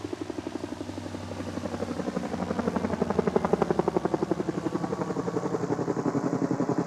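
Helicopter rotor chop: a fast, even beat of blade thumps over engine noise, growing louder about two seconds in.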